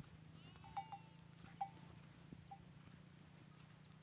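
Small bells on grazing sheep clinking in a few short, scattered rings, with a faint sheep bleat just before the first ring, over a low steady hum.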